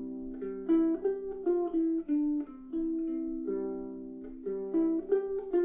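Low-G ukulele picking a single-note riff, played over and over, each plucked note left ringing under the next.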